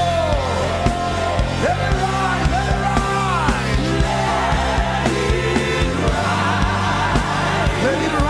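Live gospel worship music from a full band: steady drum beats, held bass notes and a gliding melody line with singing over it.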